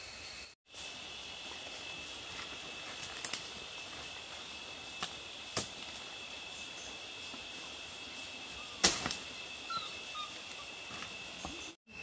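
A steady high insect drone with a few sharp knocks or snaps scattered through it, the loudest about nine seconds in. The sound drops out completely for a moment near the start and again near the end.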